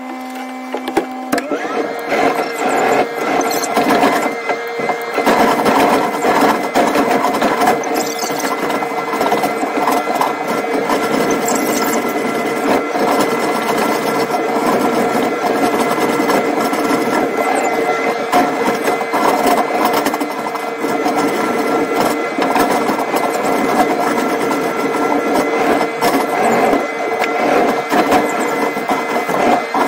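Road-rail excavator running with a steady high whine over the engine and hydraulic noise, heard from inside the cab.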